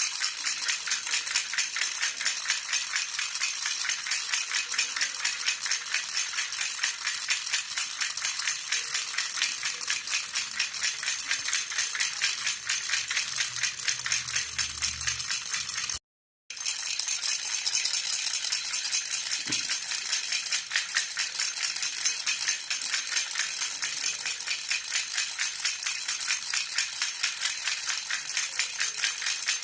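A silver jhunjhuna (Indian baby rattle) shaken continuously in a fast, even rhythm, a dense jingling that cuts out for a split second about halfway through before going on.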